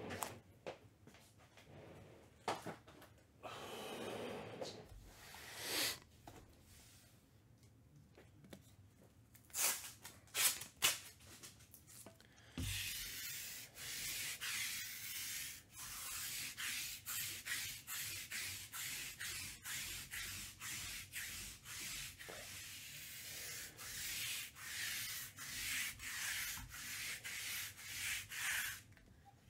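Hands rubbing and rustling trading-card packaging. A few scattered rustles and clicks come first. About twelve seconds in, a steady scratchy rubbing starts in quick repeated strokes, one or two a second, and it stops just before the end.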